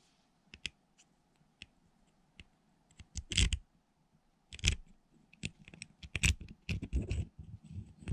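Small parts of a baitcasting reel clicking, tapping and scraping against each other as the drag washers and main gear are fitted onto the gear shaft by hand. There are a few light clicks at first, then a busier run of louder knocks and clicks from about three seconds in.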